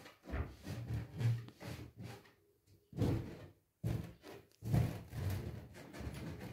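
A large inflated latex balloon being pressed and stomped under a high-heeled sandal on a tile floor without bursting: a run of dull thumps and rubbing of the rubber, with sharper knocks about three, four and five seconds in.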